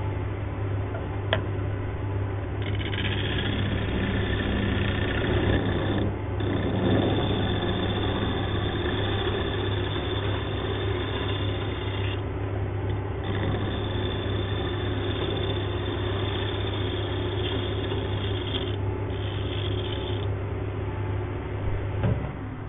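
Wood lathe running with a steady motor hum while a turning tool cuts the spinning hardwood base in several passes, the cutting noise coming and going with short breaks. The motor sound stops near the end as the lathe is switched off.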